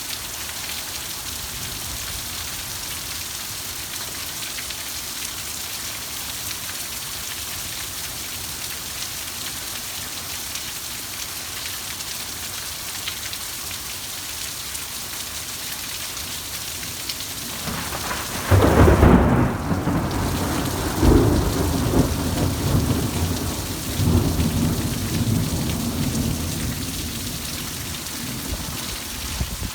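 Thunderstorm: steady rain hissing, then about two-thirds of the way in a sudden loud clap of thunder that rolls and rumbles in waves for several seconds before dying back to the rain.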